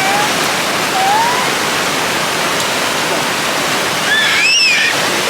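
Waterfall: a steady, loud rush of falling water. About four seconds in, a brief high-pitched voice is heard over it.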